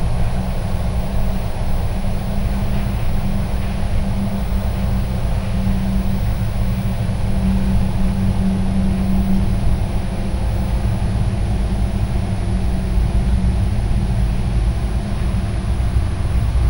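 Steady, loud low rumbling drone from the film's sound design, unchanging throughout with no sharp events.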